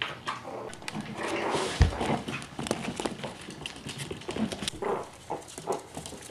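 Miniature pinscher puppies' claws clicking and pattering irregularly on a vinyl floor as they run and play, with a single heavy thump about two seconds in.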